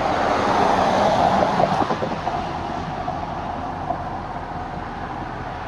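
Canadian Pacific diesel freight locomotive running as it slowly pulls a string of autorack cars. The rumble is loudest in the first two seconds, then eases to a steady level.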